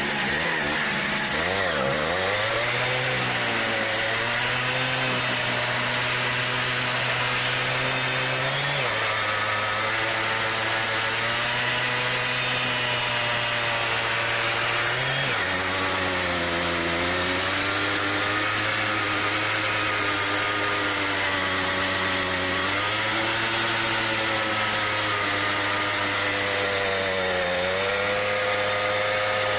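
A Simson Star moped's small single-cylinder two-stroke engine is held at high revs as its rear wheel spins in a burnout. The steady engine note steps down in pitch about a third of the way in and again about halfway, with brief wavers in pitch now and then.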